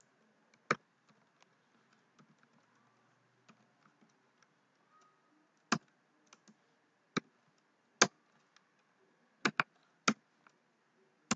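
Typing on a computer keyboard: about eight sharp, irregularly spaced key clicks, some close together, with fainter taps between them.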